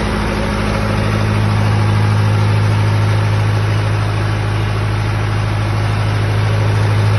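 Trolley-mounted 40 kVA diesel generator set running at steady speed, an even low hum.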